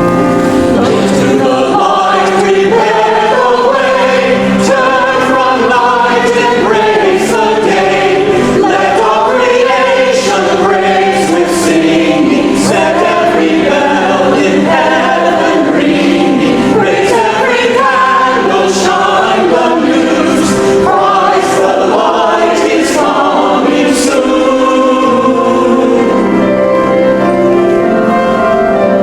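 Church choir singing a hymn-like piece with sustained instrumental accompaniment underneath, continuously and at a steady level.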